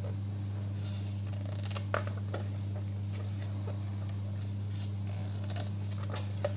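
Steady low hum with soft paper rustles and small clicks as the pages of a printed art catalogue are handled and turned.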